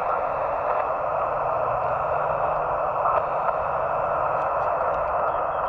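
Steady static hiss from a small HF ham transceiver's receiver, played through a small speaker while listening on the 20-metre band.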